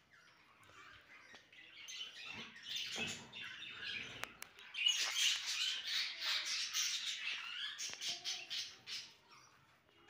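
Budgerigars chattering and squawking in quick, overlapping calls, getting busier and louder about halfway through.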